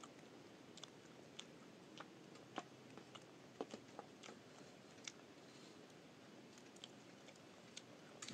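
Near silence with a dozen or so faint, irregular clicks and ticks.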